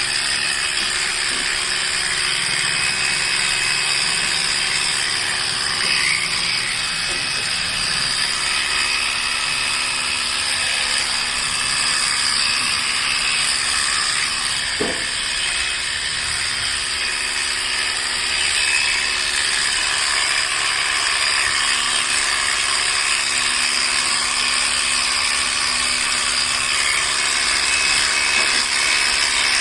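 Electric sheep-shearing clippers running steadily while trimming a sheep's wool, with a constant high whine.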